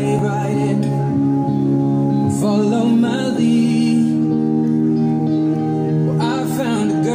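A slow song with long held chords, changing about three and a half seconds in, and a singing voice that comes in twice.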